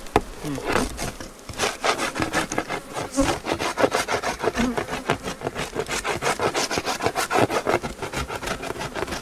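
Metal hive tool scraping a wooden board in quick repeated strokes, about four a second, once the scraping gets going about a second and a half in.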